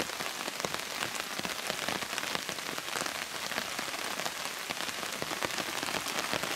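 Heavy rain falling on the surface of a shallow river, a steady, dense patter of countless individual drops.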